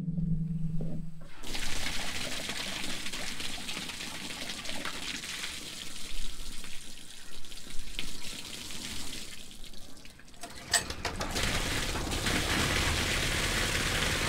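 Water from a pump-fed hose pouring into a plastic stock tank: an uneven, sputtering flow at first, settling into a steady, fuller gushing stream from about eleven seconds in.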